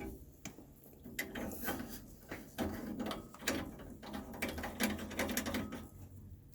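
Cap being screwed by hand onto a water heater's valve service port: a run of small clicks and scrapes from the threads.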